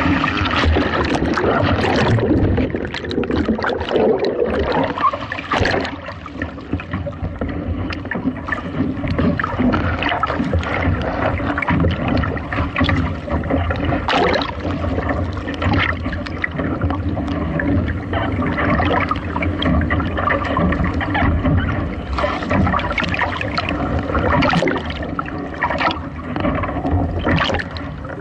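Water splashing and gurgling around a Moth sailing dinghy's hull, with irregular sudden splashes throughout.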